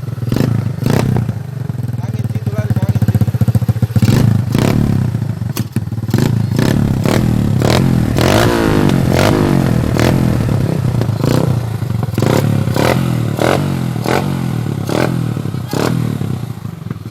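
Motorcycle fitted with an Apido aftermarket exhaust, standard-cut with a large outlet, being revved over and over: short throttle blips, with a longer rise and fall in engine pitch about halfway through.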